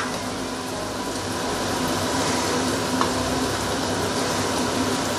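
Oil and sautéed tomato paste sizzling steadily in a stainless steel wok on residual heat, the burner just switched off.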